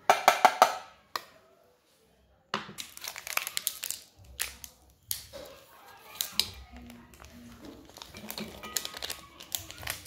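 Stainless steel grinder jar and lid clattering in a quick run of sharp, ringing knocks, then a plastic packet crinkling and rustling as it is handled and torn open, with small knocks of pieces dropping into the steel jar.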